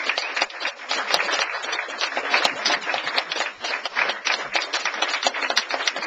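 Guests applauding: many hands clapping at once, a dense run of claps.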